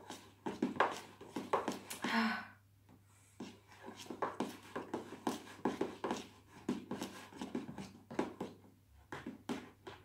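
Metal utensil beating a runny mascarpone cream by hand in a plastic bowl: quick wet strokes and scrapes against the bowl, about two to three a second, pausing briefly about two and a half seconds in.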